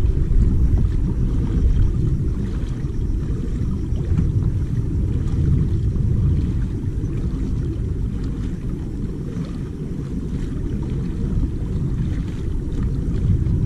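Wind buffeting the microphone of a camera mounted on a kayak, a steady low rumble, with faint small splashes of choppy water against the hull.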